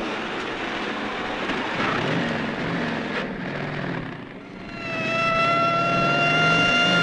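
Vehicle engine running hard with heavy road noise, which dips about two-thirds of the way in. A steady, high siren tone then comes in and holds to the end.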